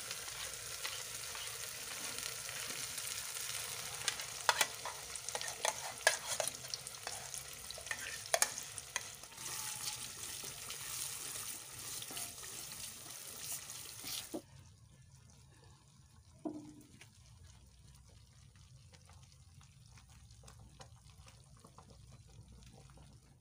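Fish, tomatoes and onions sizzling in a hot aluminium pot as groundnut (peanut) paste is poured in and stirred with a wooden spoon. The spoon knocks sharply against the pot a few times. The sizzling cuts off suddenly about 14 seconds in, leaving faint stirring in the thickened sauce.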